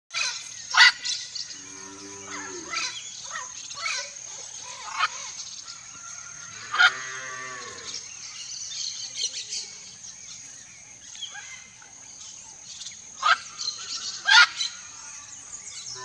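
Red-and-green macaw giving loud, harsh squawks, the loudest about a second in and a close pair near the end. A steady high-pitched buzz sits behind them, and cattle low in the background about two seconds in.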